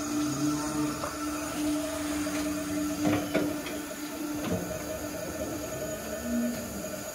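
A steady machine hum with a few short knocks and clicks about three and four and a half seconds in.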